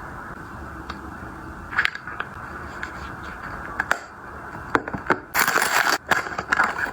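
Small handling noises: a few light clicks and scrapes, then a short burst of crinkling about five seconds in.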